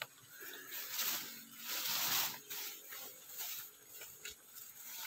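Footsteps swishing through tall grass and leafy weeds, an uneven run of rustling steps, the loudest about two seconds in.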